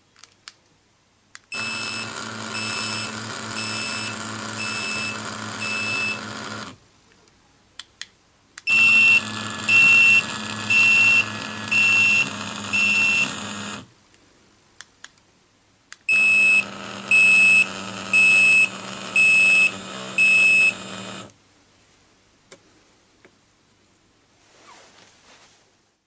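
Z-06 wireless pager receivers set off in vibrate-and-beep mode three times, for about five seconds each. Each alert is a vibration motor buzzing with a high electronic beep repeating about once a second over it. Short clicks come before each alert.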